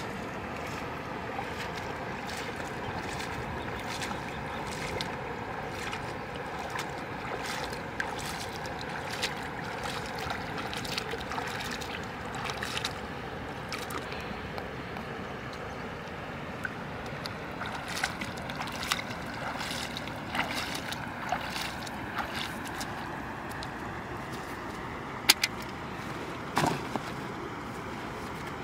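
Feet splashing through shallow river water while wading, a run of small irregular splashes and sloshes, over a steady background drone.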